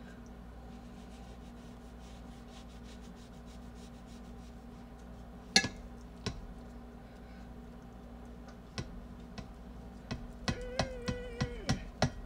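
Kitchen knife cutting through a cheeseburger on a ceramic plate: a sharp click about halfway through, then near the end a run of clicks and a short squeak as the blade scrapes the plate, over a steady low hum.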